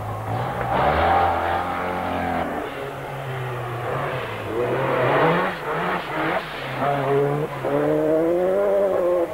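Rally car engines revving hard on a gravel stage, the note rising and dropping several times with gear changes, then held high near the end.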